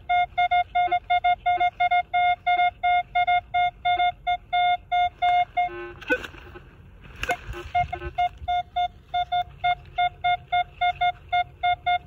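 Metal detector sounding a steady, even beep about three times a second over a buried target, a signal like the one that had just given a silver dime. About halfway through, the beeping stops for a second or so under a rustle and a couple of knocks, then starts again.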